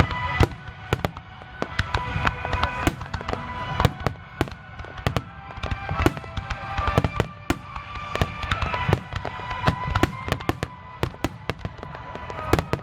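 Aerial fireworks bursting: many sharp bangs and crackles in quick, irregular succession over a low rumble, coming thickest near the end.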